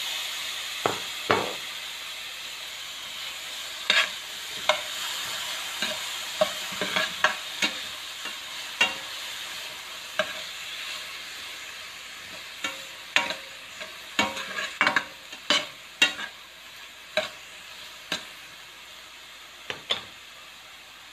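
Chopped ginger, garlic and onion sizzling in hot oil in a metal pan while a spatula stirs them, with irregular sharp clacks and scrapes of the spatula against the pan. The sizzle slowly dies down.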